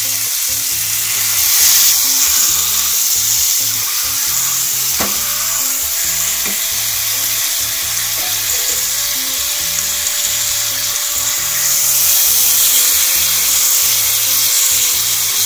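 Pomfret fish frying in butter in a pan, a steady sizzle throughout, with one sharp tap about five seconds in.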